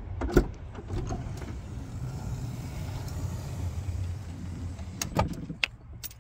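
A car door unlatching with a sharp click, then a few seconds later being pulled shut with a knock and several latch clicks, over a steady low rumble that drops away once the door closes.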